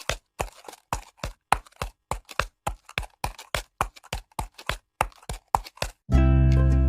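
A rapid, uneven series of sharp taps or clicks, about four a second, stopping about six seconds in as music starts.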